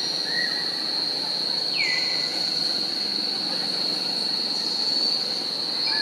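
Insects buzzing in a steady high-pitched drone, with a call that slides down in pitch about two seconds in.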